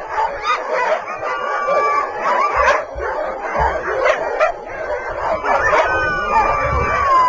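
A pack of sled dogs barking, yipping and howling together, many voices overlapping, with long drawn-out howls near the end.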